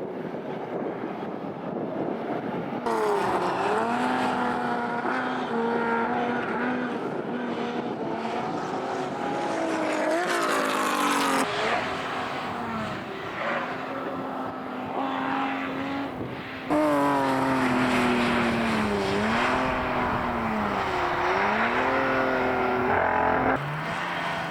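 Classic racing car engines at full throttle, the pitch repeatedly climbing as they rev out and dropping at gear changes and as cars pass. The sound changes abruptly a few times as different cars come and go.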